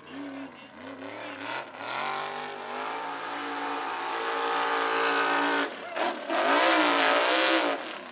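Mega truck's engine running hard at high revs, its pitch climbing and then holding high, dropping briefly about six seconds in, then swinging up and down at its loudest near the end.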